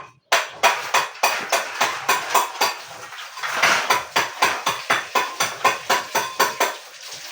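Rapid metal striking on hard building material, about four sharp knocks a second, like a hammer and metal tool working on cement or tile. It starts abruptly and runs steadily, easing off near the end.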